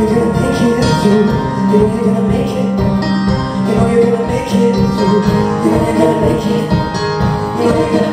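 Live band playing a folk-rock song, with plucked and strummed strings keeping a steady rhythm.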